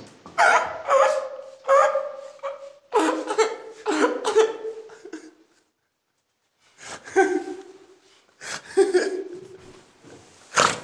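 A person laughing hard in repeated bursts, breaking off into a short silence about halfway, then laughing again twice. A single sharp knock near the end.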